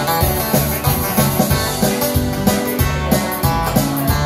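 Instrumental ending of an Irish country song played live: electric guitar over an arranger-keyboard backing track with a steady drum beat.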